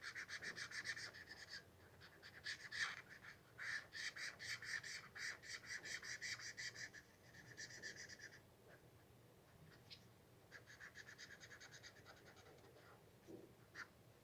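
Felt-tip marker squeaking and scratching on sketchbook paper as it colours in with quick back-and-forth strokes, in several runs of rapid ticks separated by short pauses.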